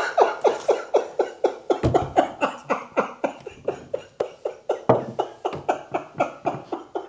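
A voice giving a long, rhythmic cackle: a steady run of short 'ha'-like pulses, about four a second, each dropping in pitch, fading toward the end.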